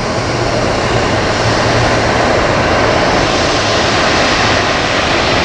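Condor Boeing 757-300's twin jet engines running at taxi power as the airliner rolls past, a steady even roar with a faint low hum underneath.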